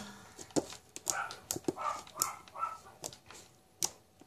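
Slime being pressed and kneaded by hand, giving a scatter of small sharp clicks and pops.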